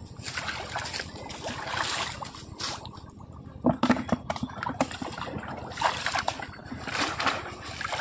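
Shallow water sloshing and splashing in irregular bursts as a polo, a bamboo basket trap, is worked in the water, with a louder splash about halfway through.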